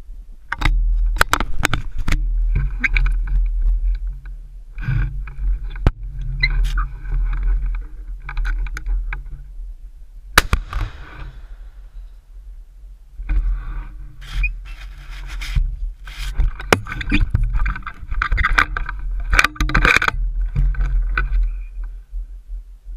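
Handling noise on a gun-mounted GoPro in its housing: rubbing, scraping and knocking as the gun is shifted about, over a steady low rumble. One sharp bang stands out about ten seconds in.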